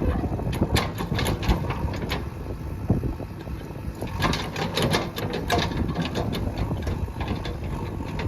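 JCB 3DX backhoe loader's diesel engine running steadily, with many sharp clanks and knocks of the machine at work, thickest about halfway through.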